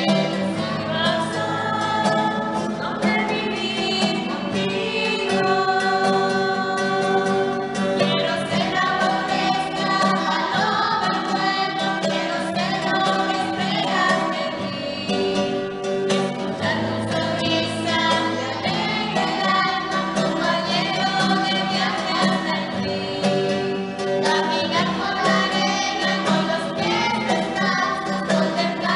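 A woman and a girl singing a religious song together, accompanied by an acoustic guitar.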